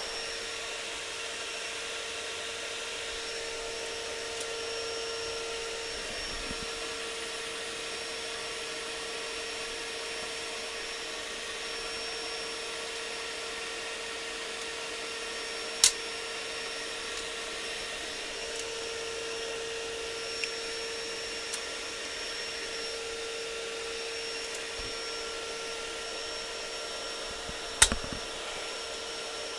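Vacuum cleaner running steadily with a constant hum, interrupted by two sharp clicks, one about halfway through and one near the end.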